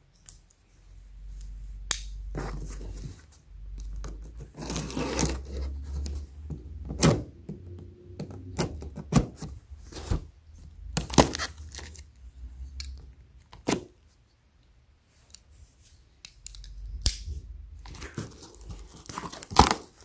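A cardboard shipping box being cut and torn open: a utility knife slices through the packing tape and cardboard, with stretches of tearing and scraping and scattered sharp knocks as the box is handled.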